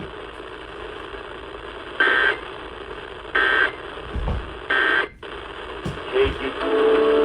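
Three short Emergency Alert System digital data bursts, the two-tone screech of the end-of-message code, each about a third of a second long and spaced just over a second apart over steady radio hiss. The audio drops out briefly after them, and steady mid-pitched tones start near the end.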